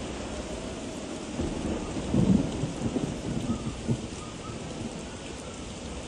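Heavy storm rain hissing steadily, with a louder, uneven low rumble swelling up about a second and a half in and dying away by about four seconds.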